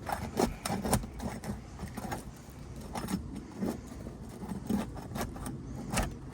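Irregular scraping and clicking of a tool working under stuck asphalt shingles to pry them loose.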